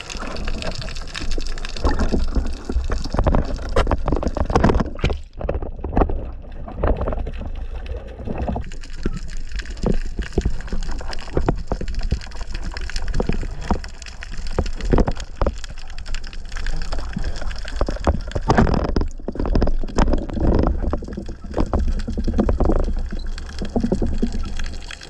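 Underwater noise picked up by the camera's microphone: a continuous rushing, gurgling water sound with many small knocks and clicks scattered through it.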